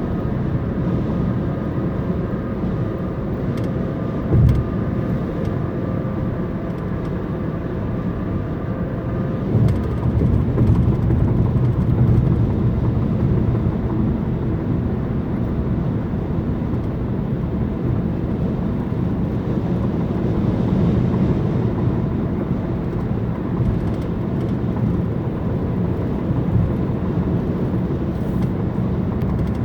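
Steady roar of a heavy thunderstorm downpour and strong wind, deep and rumbling, with a couple of brief thumps about four and ten seconds in.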